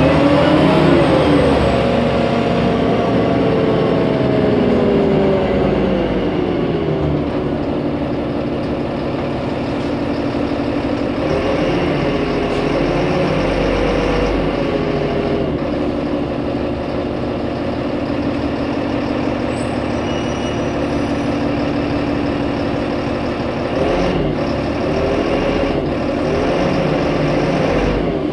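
Solaris Urbino 15 city bus under way: its diesel engine and drivetrain run continuously, with whining tones that rise and fall in pitch near the start, about twelve seconds in, and again near the end.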